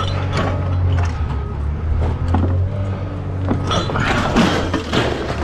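A vehicle engine idling with a steady low hum, while metal scrap is handled with scattered clanks, clicks and scrapes, busiest a little past halfway.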